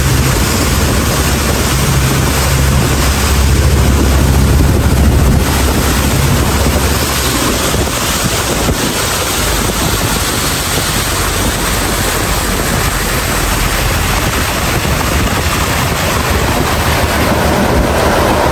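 Homemade speedboat running at speed: a steady engine drone under the rush of water spray off the hull and wind on the microphone. The low engine hum drops back about five seconds in.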